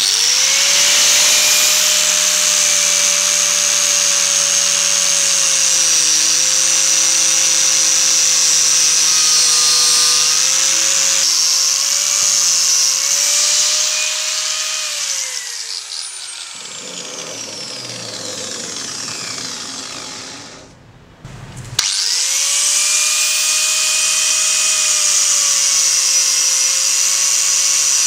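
Angle grinder fitted with a cup brush, scrubbing rust off a steel scissor blade. It runs up to speed with a steady whine, winds down about 15 seconds in, and after a short rough stretch and a brief drop-out it starts up again about 22 seconds in and runs steadily.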